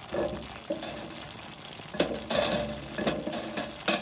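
Thick tomato sauce simmering in a frying pan, bubbling and spattering with a steady sizzle, and a spoon stirring it. Several sharper pops or scrapes come in the second half.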